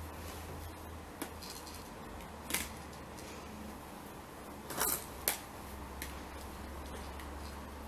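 Plastic stacking-toy rings clicking against each other and the post as a toddler handles and stacks them: a few scattered sharp clicks, the loudest pair about five seconds in, over a low steady hum.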